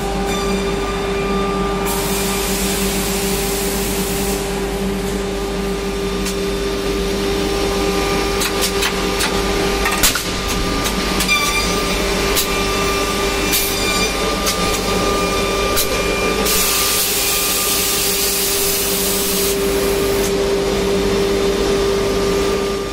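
Umaboy UEB42 automatic edge banding machine running: a steady motor hum with two stretches of hissing and scattered clicks.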